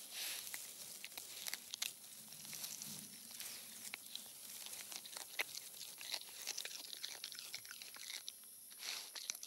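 Honey badger's claws digging and scratching in dry, crumbly soil and grass: a faint, irregular run of crunching scrapes and clicks.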